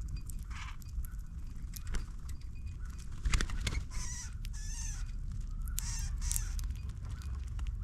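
A bird giving harsh, raspy calls, three in quick succession from about four to six and a half seconds in, after a few light clicks, over a low steady rumble.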